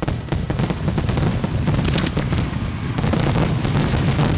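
Fireworks finale barrage: a rapid, continuous string of shell bursts and crackling reports over a low rumble, growing louder about a second in.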